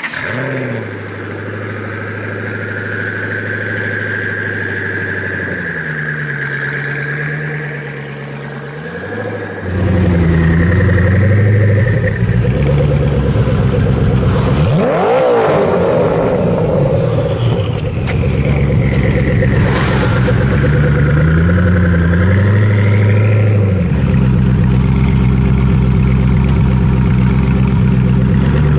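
Koenigsegg One:1's twin-turbocharged 5.1-litre V8 idling and revving in short blips, with a high whistle rising and falling above the engine note. It is louder and rougher from about ten seconds in.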